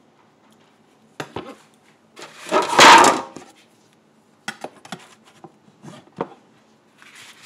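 Kitchen things being handled on a countertop: a few light knocks and clicks, then a loud rustling scrape about two to three seconds in, then more scattered knocks.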